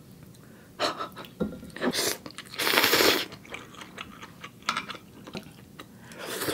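Close-miked eating of ramen noodles in spicy soup: a series of slurps and chewing sounds, the loudest slurp lasting under a second about halfway through.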